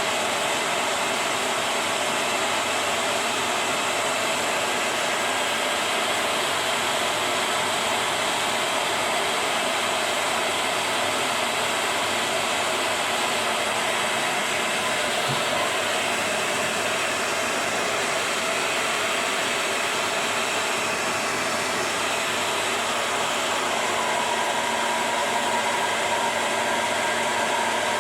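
Hair dryer blowing steadily, heating a plastic bottle sleeve to shrink it onto a juicer part. A faint steady whine joins the noise near the end.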